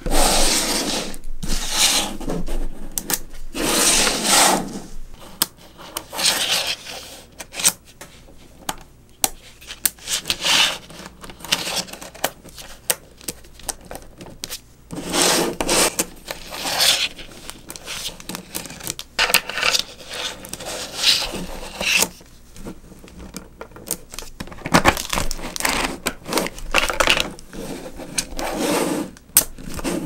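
Small magnetic balls clicking and clinking as they snap together, with short bursts of scraping and rattling as rows of them are slid and pressed across a hard tabletop into flat sheets.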